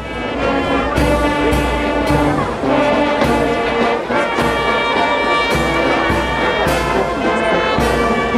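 Brass band music, trumpets and trombones playing sustained chords over regular accented beats.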